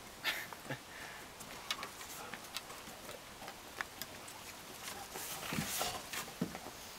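Dogs' claws clicking and paws tapping on wooden deck boards in scattered light ticks, with a few duller knocks in the last couple of seconds as the larger dog settles down onto the deck.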